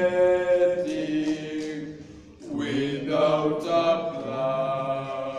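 Chant-like singing in long held notes, with a short break just after two seconds in before the singing resumes.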